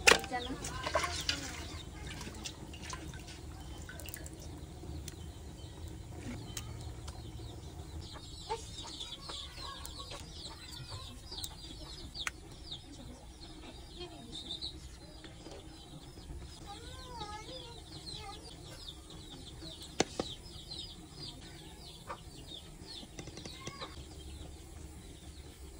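Chickens clucking and peeping in the background: a run of quick, high repeated chirps through the middle, then a few curving clucks. A few sharp clicks come through, the strongest about twenty seconds in.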